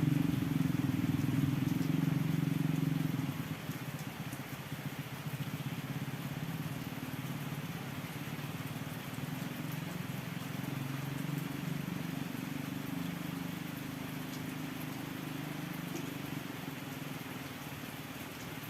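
A motor vehicle engine running, loud for the first three seconds or so, then dropping and fading slowly, over a steady hiss of outdoor ambience.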